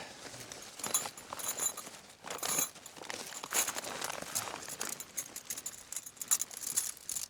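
Camping gear being handled and packed: a scatter of light metallic clinks and jangles mixed with rustling.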